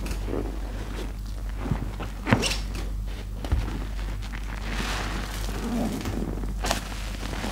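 Foam-soaked sponges squeezed and kneaded in a basin of soapy water by gloved hands: irregular wet squelching and the crackle of bursting suds, with a sharp wet click about two seconds in.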